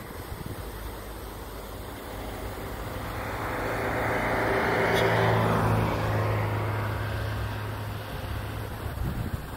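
A motor vehicle passing: a low engine hum and tyre noise that swell to a peak about halfway through and then fade away.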